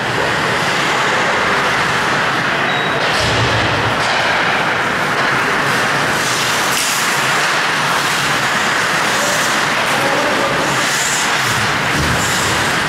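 Steady, loud noise of an ice hockey game in a rink, with a few short high scrapes typical of skate blades on the ice and a dull thud about three seconds in.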